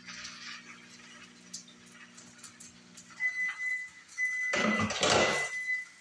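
Kitchen smoke alarm going off, set off by breakfast cooking on the stove: a steady high-pitched tone that starts about three seconds in and sounds in long beeps with short gaps. About a second after it starts there is a loud burst of rushing noise.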